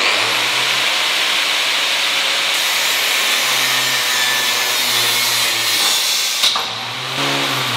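Angle grinder with a metal cutting disc running at full speed while a steel piece is forced against it: a steady harsh grinding hiss over a low motor hum, starting abruptly. About six and a half seconds in there is a sharp crack as the cutting disc shatters, after which the grinding noise drops and the motor's whine goes on.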